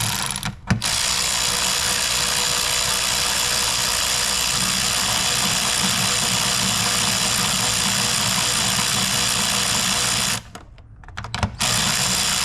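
A small motor running steadily with an even whirring hiss, cutting out about ten seconds in and starting again a second later.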